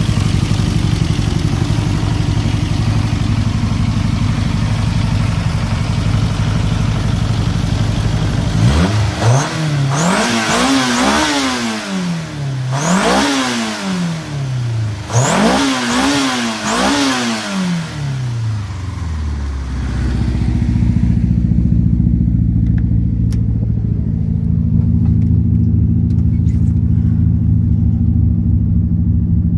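VW Polo 86C's 1.4 16V AFH four-cylinder engine on Keihin FCR41 flatslide carburettors idling steadily. About nine seconds in it is blipped up and down several times for about ten seconds, then settles back to idle, heard duller from inside the cabin. A new rev starts at the very end.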